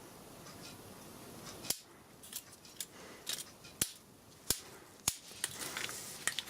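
Small hand tool snipping and clicking on a circuit board: a string of about eight sharp snips, irregularly spaced, starting nearly two seconds in.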